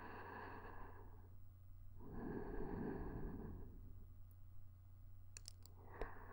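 A woman's soft, slow breathing close to the microphone: one breath trailing off about a second in, a longer breath about two seconds in, and another starting near the end. A few faint clicks fall between the breaths, over a steady low hum.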